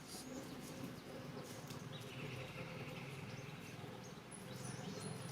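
Faint animal calls: a short buzzing call about two seconds in and thin high chirps near the end, over a low hum.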